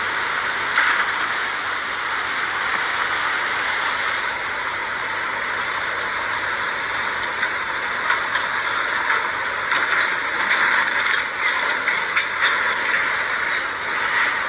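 Steady rush of fast-flowing floodwater, with a run of irregular knocks and scrapes in the second half.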